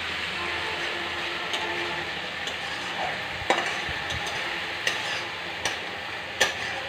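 Onion and ginger-garlic paste sizzling in hot oil in a frying pan as it is stirred with a spatula, the spatula scraping and clicking sharply against the pan about five times.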